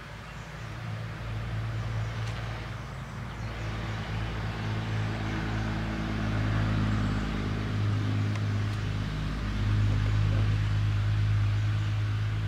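A motor engine running with a steady low hum, growing louder over the first several seconds and then holding.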